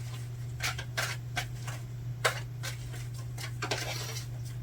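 Tarot cards being shuffled and handled by hand: a run of irregular soft clicks and slaps, a few a second, over a steady low hum.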